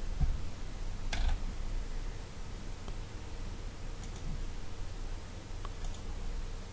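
A few sharp clicks at a computer's mouse or keyboard, a quick pair about a second in and fainter single ones later, over a low steady hum.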